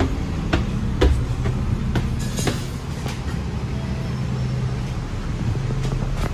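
Bus running: a steady low engine drone with scattered short knocks and rattles.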